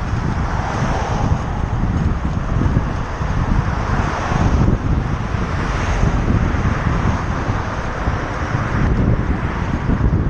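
Wind buffeting the microphone of a camera on a moving bicycle, a heavy low rumble, with traffic on the adjacent road swelling and fading a few times as cars pass.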